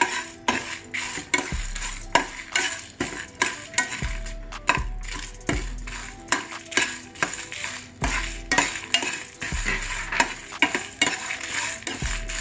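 A metal ladle stirring and scraping dry lentils, peanuts and dried red chillies around an aluminium pan as they roast on a low flame. It makes a quick run of clicks and rattles, about three strokes a second.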